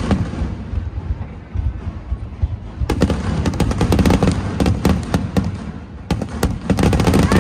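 Aerial fireworks bursting over a low rumble: scattered bangs, then dense runs of rapid crackling bangs about three seconds in and again near the end.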